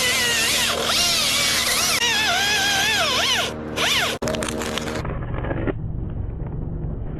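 Chainsaw running at high revs, its pitch repeatedly dipping and rising. About five seconds in it gives way to a duller, low, steady engine rumble.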